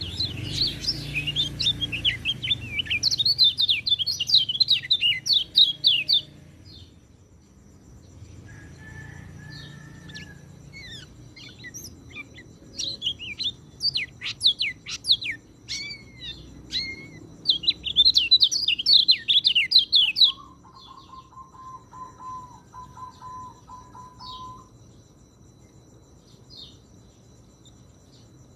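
Peleci (orange-headed thrush) singing: long bursts of fast, high-pitched, varied chirping phrases with a pause between them. After the second burst comes a steady lower note lasting about four seconds.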